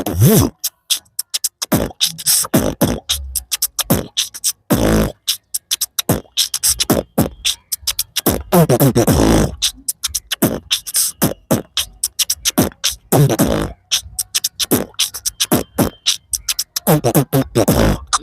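Beatboxing in a hip-hop/rap style: a fast run of mouth-made kick, snare and hi-hat clicks, broken a few times by vocal sweeps that slide down in pitch.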